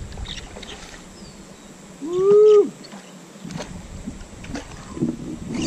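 A man's single drawn-out hoot, about two seconds in, lasting about half a second and rising then falling in pitch. Faint clicks can be heard around it.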